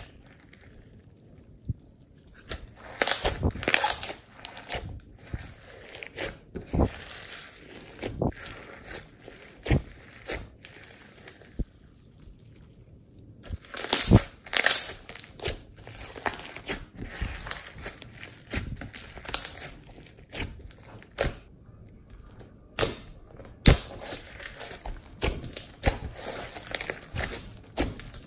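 Glossy slime mixed with foam beads being squeezed, stretched and kneaded by hand: sticky squelches with irregular pops and crackles, in uneven bursts with short lulls.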